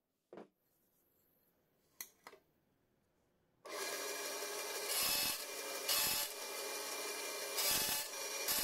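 Bandsaw blade cutting through a metal hard-drive platter: a continuous rasping noise that starts abruptly a little past halfway and swells louder about once a second as the disc is fed. Before it, a short knock and two light clicks.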